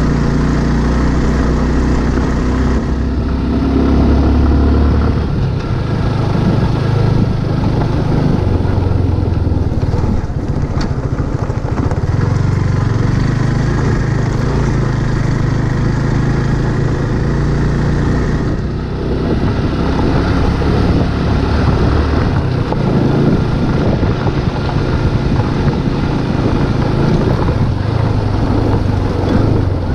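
Motorcycle engine running on the move, its pitch shifting several times as the speed changes, over a steady rushing noise.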